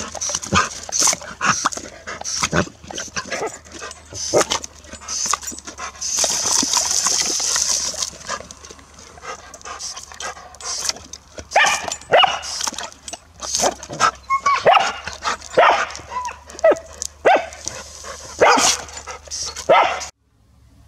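Golden retriever barking, yipping and snapping excitedly at the spray of a garden hose nozzle, many short calls in quick succession, with the hiss of the water jet about six seconds in. The sound cuts off abruptly near the end.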